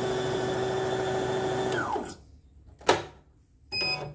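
Electric motor of a CNY portable embroidery machine running with a steady whine, then winding down in falling pitch about two seconds in; the motor has been described as loud and rough, going 'sak-sak-sak'. A sharp click follows about a second later, and a brief high tone near the end.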